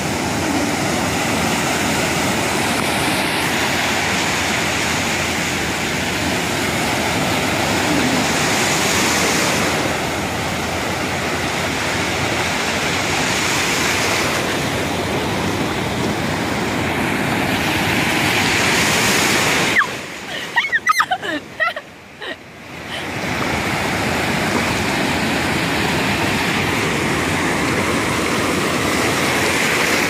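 Ocean surf breaking and washing through shallow water, a loud steady rush that swells every few seconds as waves roll in. About twenty seconds in it briefly drops away for a couple of seconds with a few short gurgling blips, then returns.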